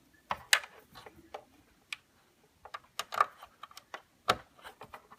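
Sharp plastic clicks and knocks, about a dozen at uneven intervals, as an auxiliary cable plug is pushed into and pulled from a car's refitted AUX port.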